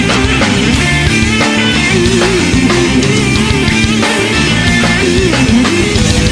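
Loud instrumental heavy rock with no vocals: distorted electric guitars, bass and drums, with a lead line of bent, wavering notes over a steady beat.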